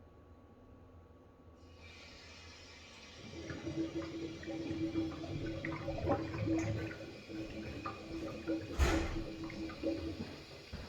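Water rushing through the washing machine's supply plumbing and hose into the drain as the main water valve is opened, with a steady hum from about three seconds in and a sharp knock near the end.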